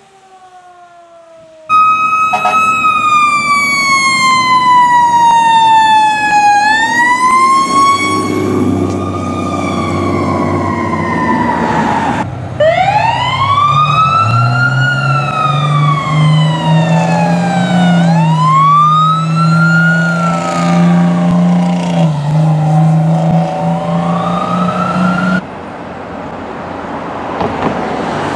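Fire truck sirens wailing in slow rising and falling sweeps, changing abruptly twice as one responding truck gives way to the next. A steady low drone runs under the middle stretch. Near the end the sound drops to quieter road and engine noise without a clear siren.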